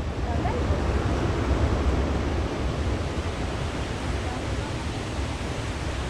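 Steady rushing of flowing water, with a low rumble of wind on the microphone underneath.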